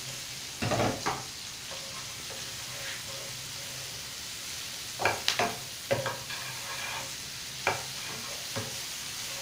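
Onion and garlic sizzling in melted butter in a non-stick frying pan, with a steady hiss. A spatula scrapes and knocks against the pan as they are stirred, in short clusters about a second in and again from about five seconds on.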